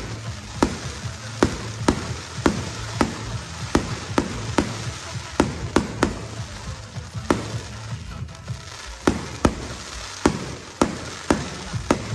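Rapid-fire fireworks barrage: shell after shell bursting with sharp bangs about twice a second, crackling between them, with a short lull about eight seconds in.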